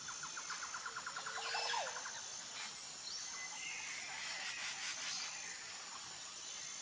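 Small birds chirping in outdoor ambience, with a rapid trill of about ten notes a second for roughly two seconds near the start and a few scattered chirps after, over a thin steady high tone.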